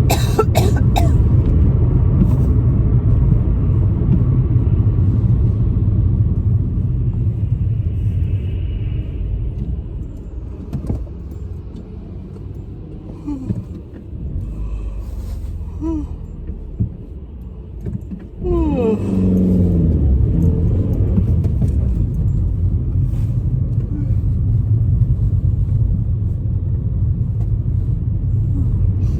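Road and engine rumble inside a moving car. It drops quieter for several seconds midway, then rises again about two-thirds of the way through with a short gliding pitched sound.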